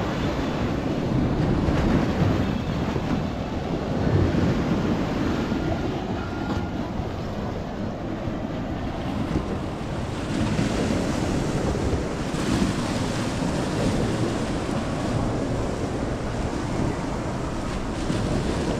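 Sea waves breaking and washing up a sloping concrete sea wall, the surf swelling and easing every few seconds, with wind buffeting the microphone.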